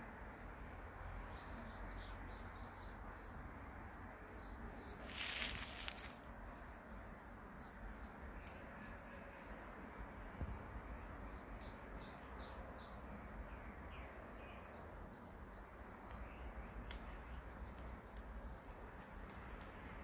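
Small birds chirping over a steady low outdoor background, many short high chirps in quick succession. There is a louder harsh, hissing burst lasting about a second, about five seconds in.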